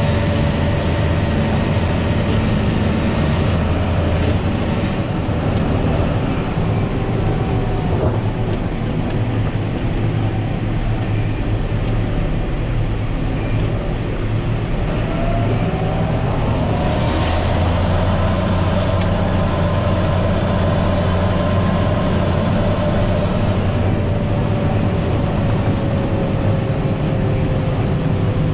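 John Deere 7530 tractor's six-cylinder diesel running steadily under load while plowing snow, heard from inside the cab, with a drivetrain whine that rises in pitch about halfway through and then slowly falls. A single knock comes about eight seconds in.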